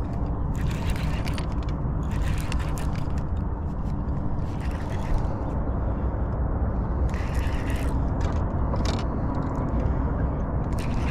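Baitcasting reel working in short spells of mechanical clicking as a hooked smallmouth bass is fought toward the boat, over a steady low rumble.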